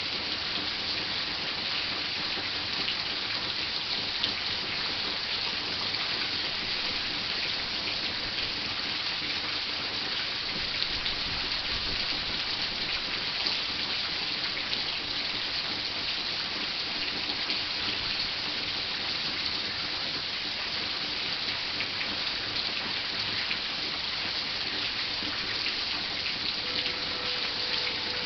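Heavy rain falling steadily, a dense even hiss of many drops striking surfaces.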